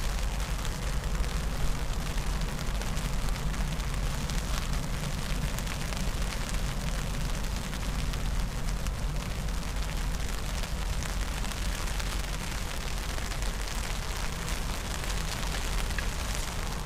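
Wind buffeting the microphone: a steady low rumble with hiss.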